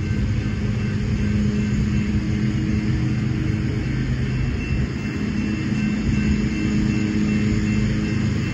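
Railroad grade-crossing warning bell ringing at an even pace over the steady low rumble and drone of an approaching diesel freight train.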